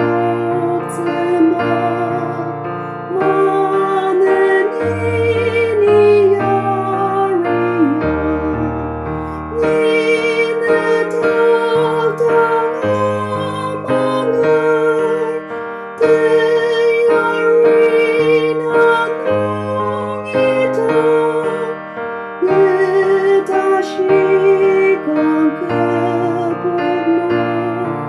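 Slow music: a held, wavering melody line over electric piano or keyboard chords and low bass notes that change every second or two.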